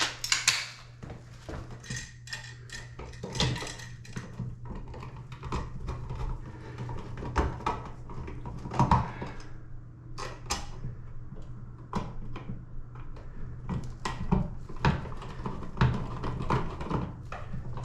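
Small metal hardware being handled: irregular light clicks, taps and scrapes of screws, screwdriver and a rocker light switch being fitted, over a steady low hum.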